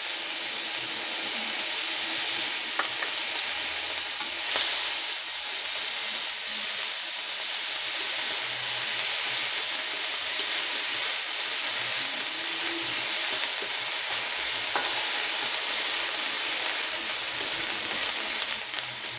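Onion paste sizzling steadily in hot oil in a kadai, with a metal spatula stirring and scraping it across the pan.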